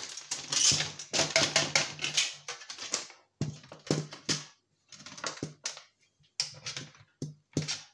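Dense, irregular clicking and clattering knocks as a circuit board is wiggled and pried loose from the casing of a scrapped electronic device, coming in clusters with short pauses between.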